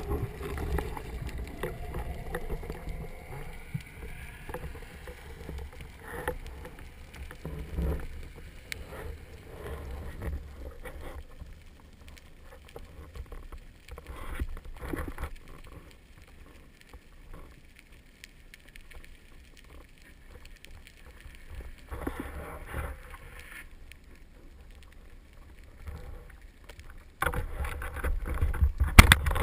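Water noise heard underwater: a low rumble with scattered small clicks and knocks, growing louder and busier near the end.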